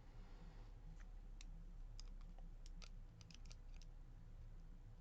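Faint metallic clicks and ticks of a small tool working inside a disassembled pin-tumbler lock to free a ball bearing. A few single clicks come first, then a quick run of ticks in the second half.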